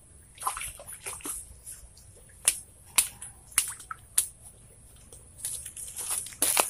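Hooked climbing perch thrashing at the surface of a shallow pond as it is pulled in on a pole: a string of short splashes and drips, busiest and loudest near the end as the fish comes out of the water.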